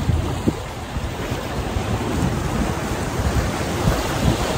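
Wind buffeting the microphone in uneven gusts over a steady wash of sea waves.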